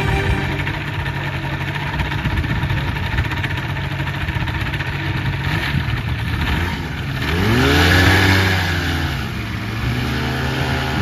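Paramotor trike's engine and propeller running steadily, then revved up about seven seconds in and eased back down, the throttle-up that pulls the wing up for launch.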